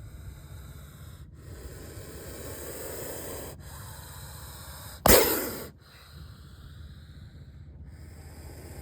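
A snake's single sharp, loud defensive hiss about five seconds in, lasting about half a second and dying away, over a steady low background noise.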